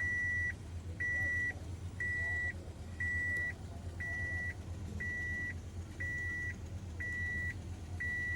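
A truck's electronic warning beeper sounding a steady high beep about once a second, each beep about half a second long, over the low steady hum of the running engine.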